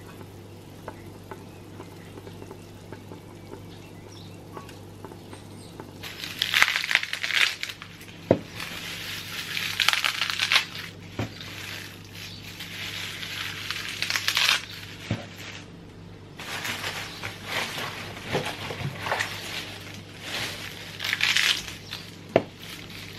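Fresh puha (sow thistle) greens handled and broken up by hand: irregular bursts of crisp leafy rustling and snapping stems, starting about six seconds in after a low steady hum.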